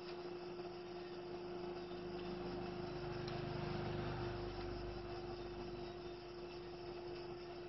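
Quiet background noise: a steady hum, with a low rumble that swells up about two seconds in and fades away by about six seconds.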